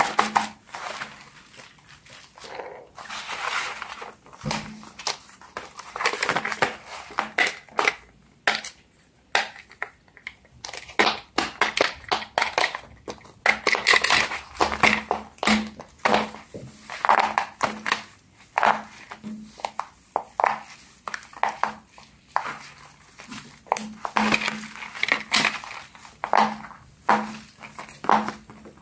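Hands handling silicone pop-it fidget toys and a squishy on a tabletop: a long, irregular run of taps, clicks and soft knocks with crinkly handling noise.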